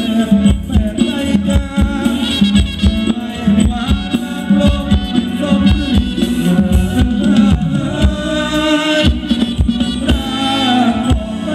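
A live band playing Thai ramwong dance music with a steady drum beat under a bending, sung-style melody line.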